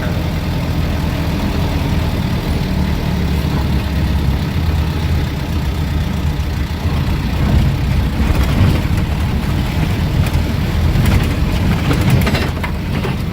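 Engine and road rumble heard from inside a vehicle driving on a bumpy road. From about eight seconds in there are scattered knocks and rattles as it goes over the bumps.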